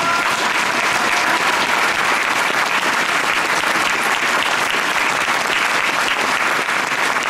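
Crowd applauding: dense, steady clapping that starts abruptly and holds at an even level throughout.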